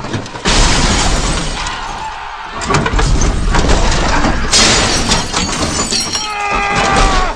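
Loud, dense crashing and shattering noise with many sharp impacts, like glass breaking, cutting off abruptly at the end.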